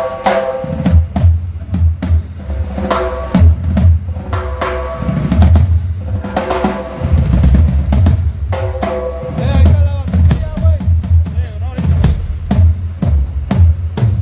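Drum kit played during a band's soundcheck: a steady kick-and-snare beat with fills, the kick drum heavy in the low end and some drums left ringing after the hits.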